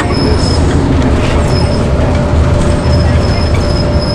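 Detroit Diesel Series 50 engine of a NovaBus RTS-06 transit bus running, heard from inside the passenger cabin as a loud steady low drone, with short high-pitched squeaks now and then.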